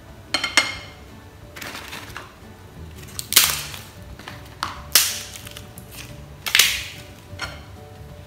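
Brittle rice paper (bánh tráng) crackling and crunching as it is handled and broken, in about six short, sharp bursts.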